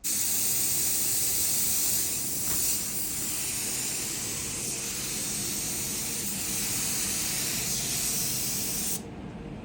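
Compressed-air paint spray gun spraying in a steady hiss, cutting off sharply about nine seconds in and leaving a quieter steady rush of air.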